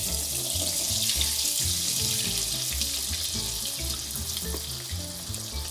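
Breaded chicken nuggets frying in a pot of hot vegetable oil: a dense, steady sizzle with fine crackling. Background music with a steady beat plays under it.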